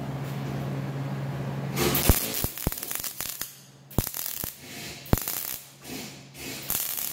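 MIG welding arc from a Lincoln Power MIG 200 as steel bar stock is welded onto a combine grate. It starts with about two seconds of steady buzzing, then breaks into several short crackling runs with sharp pops and brief pauses between them.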